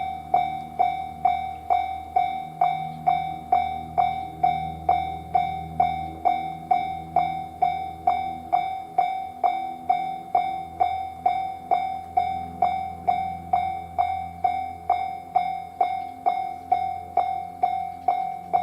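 Japanese railway level-crossing warning bell ringing its steady "kan-kan", about two strikes a second, each a single ringing tone that dies away quickly. A low rumble runs underneath.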